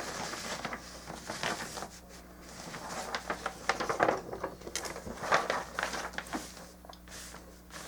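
Plastic model kit parts and runners being handled, with irregular light clicks and rustling.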